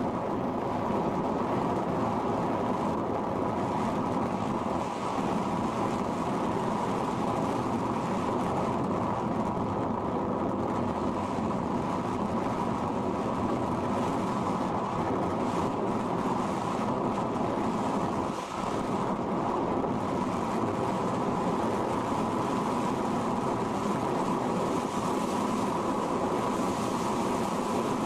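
Steady rush of airflow over the microphone of a camera mounted on an RC sailplane in gliding flight, with one brief dip about eighteen seconds in.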